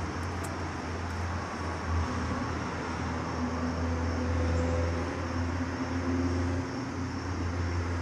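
Steady low rumble of outdoor background noise, with a faint droning tone swelling up in the middle. There are a couple of light clicks right at the start.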